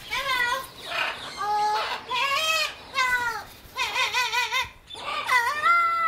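A parrot calling: a string of about six clear, whistle-like calls, each under a second long, some wavering up and down in pitch.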